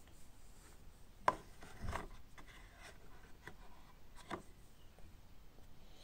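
Faint handling noises from the vacuum cleaner's parts being fitted back together: a few separate clicks and knocks, the sharpest about a second in.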